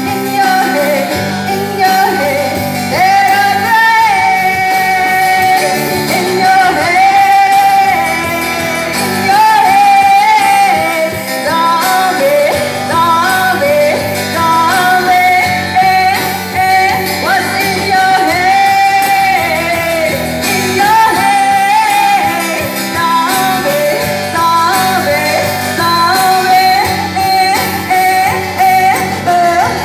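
A woman singing with a powerful voice into a microphone, with acoustic guitar accompaniment in a live busking performance. Her melody has long held notes that bend in pitch.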